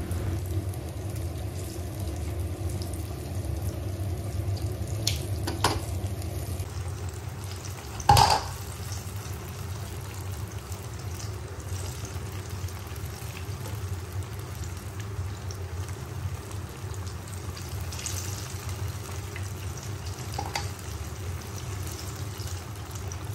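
Banana fritters sizzling steadily as they deep-fry in olive oil in a pan. A few sharp clicks cut through, the loudest about eight seconds in.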